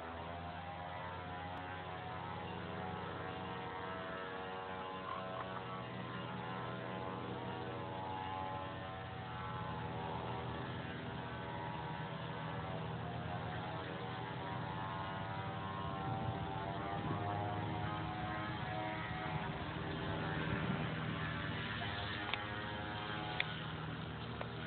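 A steady machine hum, its pitch drifting slowly, with a couple of sharp clicks near the end.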